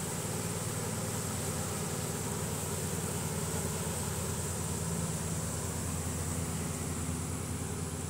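Steady buzzing drone of a honey bee swarm as it crawls into a hive box.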